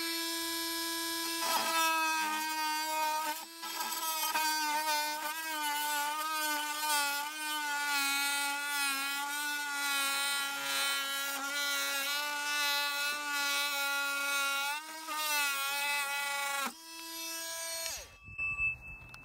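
Oscillating multi-tool with a long Arrow multi-tool blade cutting through a wooden 2x2, a steady whine. It runs freely for a moment. Its pitch then drops a little and wavers while the blade works through the wood. It rises again as the cut finishes, and the tool stops near the end.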